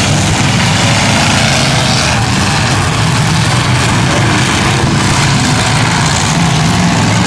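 Several demolition-derby pickup truck engines running at once, a loud, steady, blended engine din with no single clear crash.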